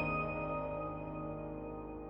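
Gentle background piano music: a chord struck at the start rings out and slowly fades.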